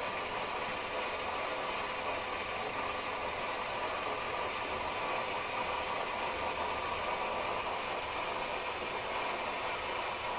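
Vacuum cleaner running steadily on a long pole: an even hiss with faint steady whine tones.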